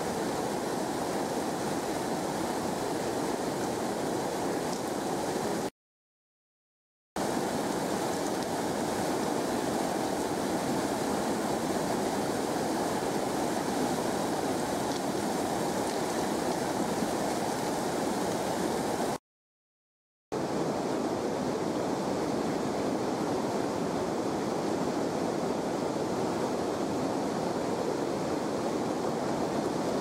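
Water rushing steadily over a small waterfall and churning into white foam below, a dense even splashing. The sound cuts out completely twice, for about a second each, around six and nineteen seconds in.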